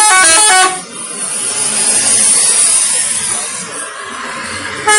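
Indonesian bus 'telolet' musical air horn playing its quick stepping multi-note tune, cutting off less than a second in. A rushing, hissing noise follows, and the horn tune starts again right at the end.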